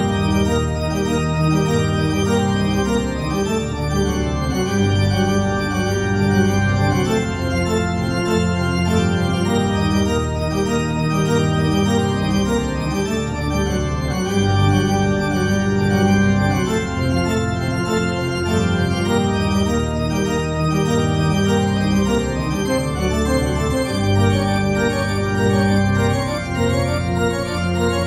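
Organ music accompaniment, steady and continuous, with held chords over a bass line that changes every second or two.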